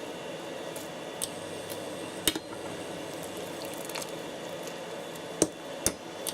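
Steady bubbling of noodles and sauce cooking on the hob. A few sharp clinks of a utensil against the pan cut through it, the loudest about two seconds in and two more near the end.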